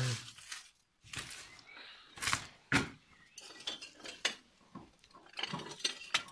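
Irregular clinking and knocking of hard objects, with the sharpest knocks about two and a half seconds in and a quicker cluster of rattles near the end.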